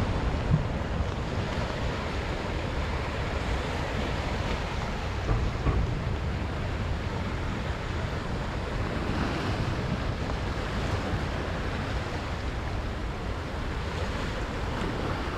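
Sea surf washing steadily against a rocky shore, with wind rumbling on the microphone.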